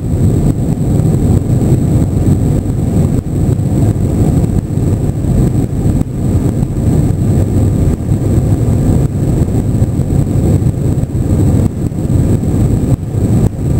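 Airbus A321 cabin noise: a loud, steady low roar of the jet engines and airflow, with a faint steady high whine above it.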